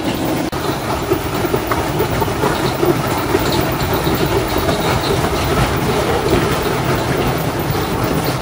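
Fast-flowing brown water rushing and churning in a channel, a loud steady noise of running water.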